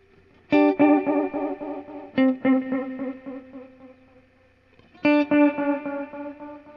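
Electric guitar played through an EarthQuaker Devices Disaster Transport SR modulated delay. Notes are struck about half a second in, again near two seconds and again near five seconds. Each is followed by a trail of quick, evenly spaced delay repeats that fade out, with a gentle wavering in pitch from the modulation.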